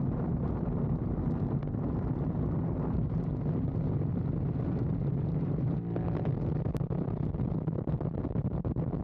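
Yamaha MT-07 parallel-twin engine running steadily at cruising speed, with wind buffeting the microphone. About six seconds in, the engine note briefly dips.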